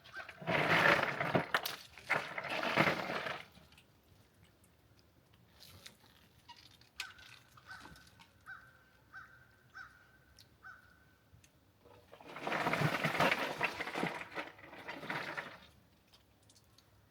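Ice rattling and crunching in an ice chest as chilled chicken carcasses are dug out. There are two bursts of a few seconds each, one about a second in and one about twelve seconds in.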